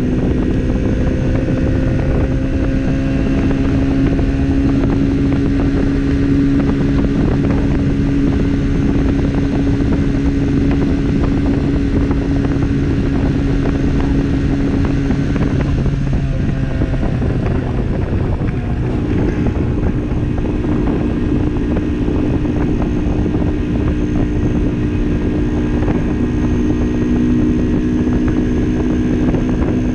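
Barton Volcano 50cc motorcycle engine running at full throttle at steady high revs while riding. About eighteen seconds in, its note dips briefly and then settles a little higher.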